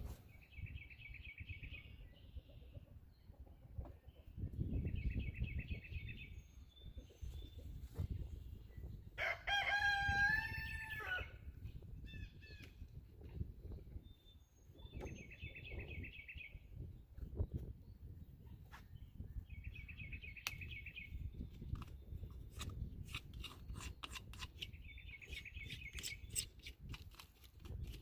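Rooster crowing once about ten seconds in, with short rapid pulsed bird calls repeating several times. Wind rumbles on the microphone throughout, and a run of sharp clicks comes near the end.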